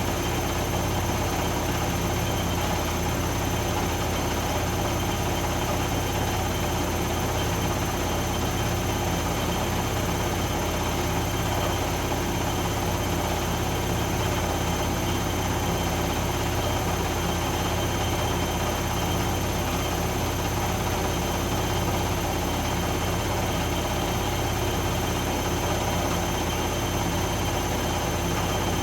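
Zanussi ZE 16 washing machine in its high-speed final spin with an unbalanced load: a steady, loud rumble of the drum and cabinet with a constant high motor whine over it.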